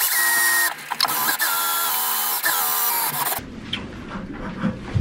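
Cordless drill running with a whining motor as it bores into the bow thruster tunnel tube. The whine dips briefly under a second in, then runs on with shifting pitch and stops about two-thirds of the way through. A few quieter mechanical clicks follow.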